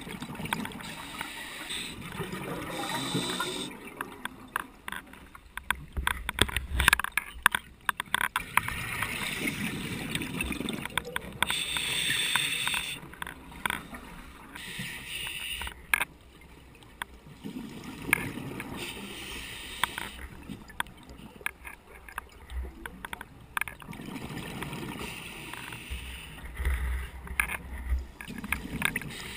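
Scuba diver breathing through a regulator underwater: hissing inhalations alternating with gurgling rushes of exhaled bubbles, the cycle repeating every several seconds. Throughout runs a clicking rattle from the camera.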